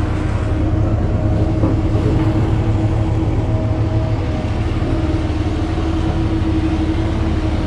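Pickup truck engine running at low speed while towing a loaded flatbed car trailer: a steady low rumble with a constant hum over it.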